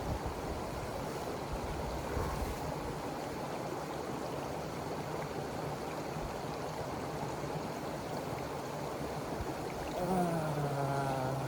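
Steady rushing of flowing water from the hot spring. Near the end a man lets out a drawn-out groan that slides down in pitch.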